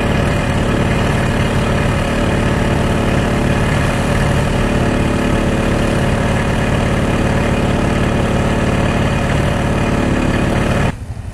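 ATV engine running steadily, loud and even in pitch, with no revving.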